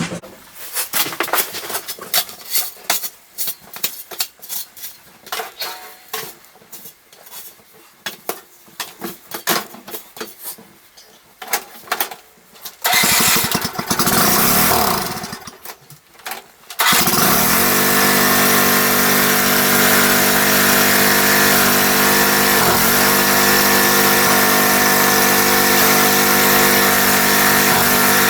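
A quick run of short crunches and scrapes, then a riding lawn mower's engine is heard about 13 seconds in and from about 17 seconds in runs steadily, with two brief dips in speed.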